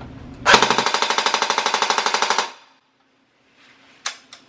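Battery-powered electric airsoft AK-74U replica firing one full-auto burst of about two seconds, roughly eleven to twelve shots a second, loud. Two short clicks follow near the end.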